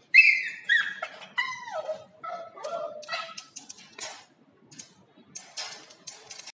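Toy poodle puppy whining: several high cries, each falling in pitch, over the first three seconds, followed by a run of short scrapes and clicks.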